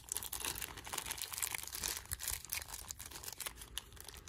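Packaging crinkling and rustling as it is handled and opened: a dense run of small crackles, with a sharp click right at the start.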